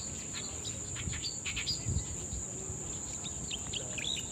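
Insects keep up a steady high-pitched drone, with short chirps scattered through it and a faint low rumble underneath.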